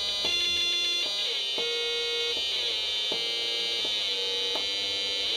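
Breadboard oscillator circuit sounding a sawtooth tone through a small speaker, its pitch jumping and sliding up and down several times as the potentiometer is turned.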